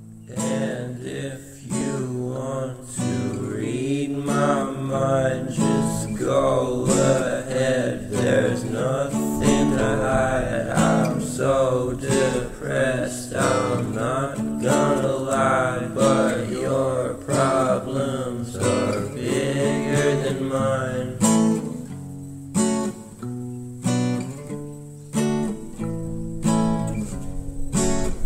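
Background music with strummed acoustic guitar and a wavering melody line over it; the melody drops away about three-quarters of the way through, leaving sparser guitar notes.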